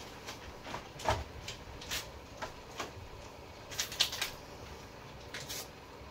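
Scattered light clicks, taps and rustles of food and packaging being handled at a kitchen counter, irregular, with a couple of sharper knocks about one second and four seconds in.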